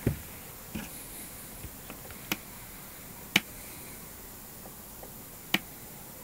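A dull thump right at the start, then four sharp clicks spaced a second or two apart, the loudest a little over three seconds in, over a faint steady hiss.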